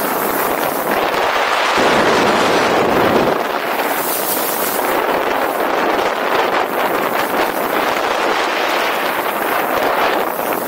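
Skis sliding and scraping over groomed snow, with wind buffeting the microphone. A stronger gust about two to three seconds in.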